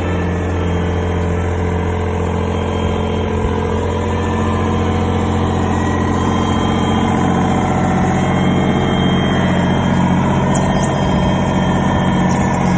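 Mitsubishi MM20CR 2-tonne mini excavator's diesel engine running steadily near idle. It gets a little louder from about halfway through.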